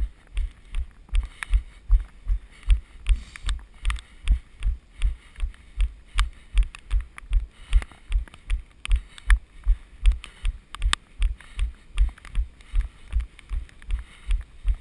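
A runner's footfalls heard through a body-worn action camera: dull low thuds at a steady running cadence of nearly three a second, with faint short clicks over them.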